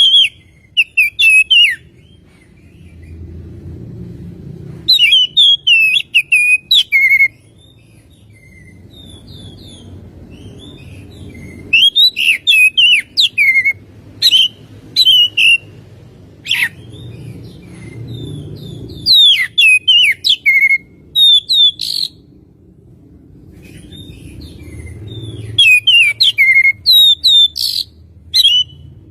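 Oriental magpie-robin (kacer) singing loud bursts of rapid, varied whistled phrases, with pauses of several seconds between bursts. A low, steady background rumble runs underneath.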